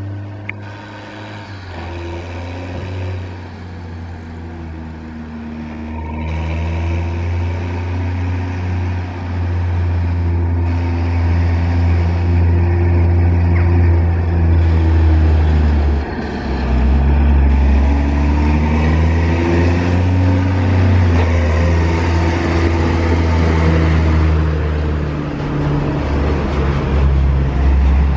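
New Holland T6050 tractor's diesel engine pulling a trailer loaded with straw bales as it approaches and passes close by, getting steadily louder. The engine note rises and falls with the throttle, with a brief dip a little over halfway through.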